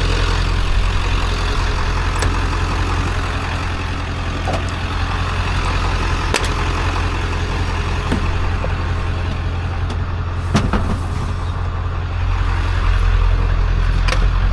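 Motor vehicle engine running steadily with a low hum, with a few sharp clicks or knocks over it.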